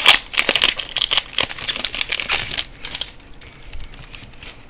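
Foil wrapper of a Pokémon EX Crystal Guardians booster pack crinkling as it is handled and opened, dense crackling for the first two and a half seconds or so, then fainter.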